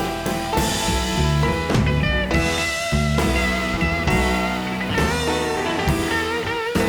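Background music: a guitar-led rock track with a drum beat.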